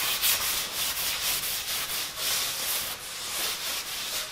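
A damp microfiber towel rubbed back and forth along the edge of a white panel, a hissing swish in repeated strokes about two or three a second. It is wetting the edge before glue goes on.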